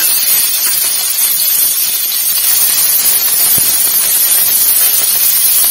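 Cumin seeds and chopped ginger sizzling steadily in hot oil in a kadhai.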